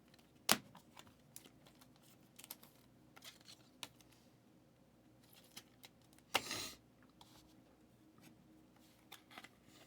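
Trading cards and their plastic sleeves being handled on a table: scattered light clicks and taps, a sharp click about half a second in, and a short rustling slide a little after six seconds.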